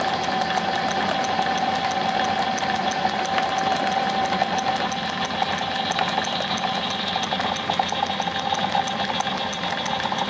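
Drill press running steadily, a steady hum with a fast, regular ticking, as its bit bores through a rubber hockey puck.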